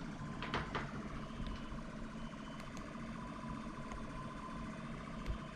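Steady, siren-like electronic tones from Monoxide malware playing through the computer's speakers, with two short clicks about half a second in.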